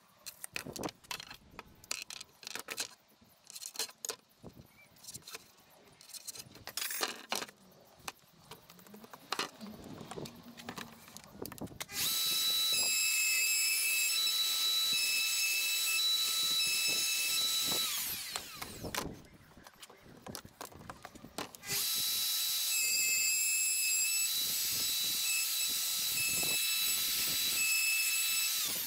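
Plunge router cutting a worktop-bolt recess through a worktop jig into a chipboard worktop. Light clicks and knocks come first, then the router starts suddenly with a steady high whine about twelve seconds in, runs for about six seconds and winds down. It starts again about three seconds later and runs until the end.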